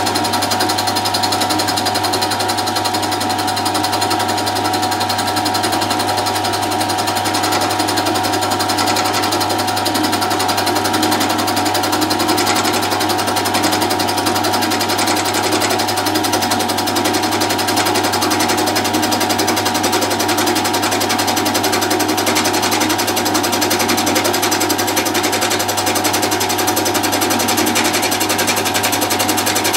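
Milling machine running steadily with a steady low hum and higher whine from its drive, spinning a shop-made single-point cutter (a 6 mm high-speed steel bit in a cross-drilled bar) as it is fed down into a block of wood.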